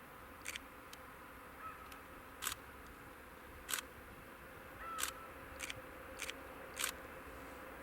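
Birds calling: short sharp calls repeated about once a second, with a brief whistled call twice, over a faint steady hum.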